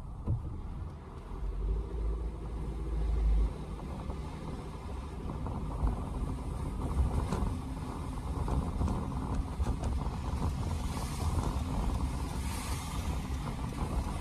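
Road noise inside a moving car: a steady low rumble of tyres and engine on wet, slushy pavement, heavier for a couple of seconds near the start. Toward the end a hiss of tyre spray swells as another car passes.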